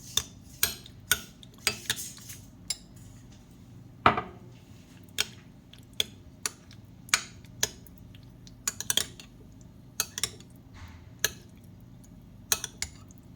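Metal spoon clinking and tapping against a dish, in about twenty sharp, irregular knocks, as spices are spooned out.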